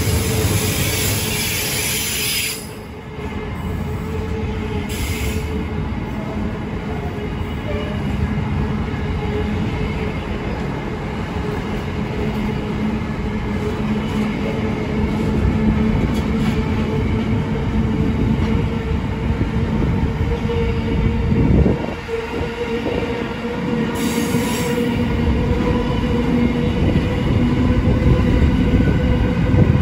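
Container freight train's wagons rolling past at close range: a steady, loud rumble of wheels on rail, with thin squealing tones from the wheels held throughout.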